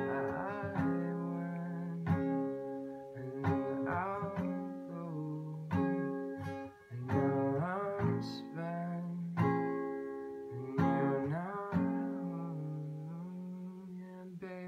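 Acoustic guitar music: chords strummed about every one to two seconds, each left to ring.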